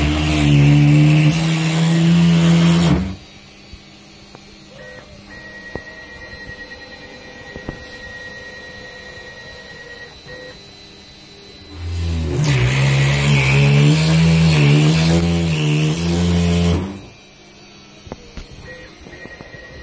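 Home-built CNC router engraving acrylic with a Kress spindle and a 90-degree V-bit. Its motors give two long, loud stretches of whine that shifts in pitch: the first ends about three seconds in, and the second runs from about twelve to seventeen seconds. Between them is a quieter steady hum.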